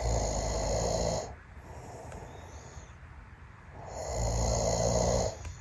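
A man snoring in his sleep: two loud snores about four seconds apart, each lasting a little over a second, with quieter breathing between them.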